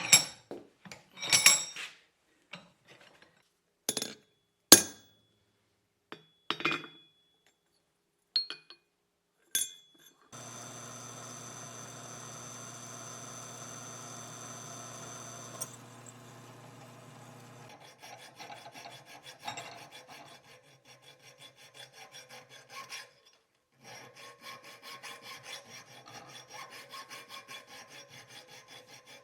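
A few sharp metal strikes with a short ring in the first ten seconds, then an electric motor humming steadily for about five seconds. After that, a file rasps rhythmically across forged steel bar stock, working a groove into the finished piece.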